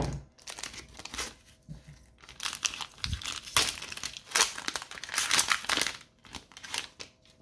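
Wrapper of a trading card pack being crinkled and torn open, in irregular bursts of crackling.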